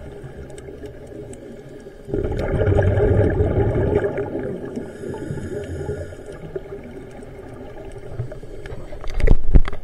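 Heard underwater: a scuba diver's exhaled bubbles from the regulator, a rumbling burst starting about two seconds in and fading over a couple of seconds. A few sharp knocks come near the end.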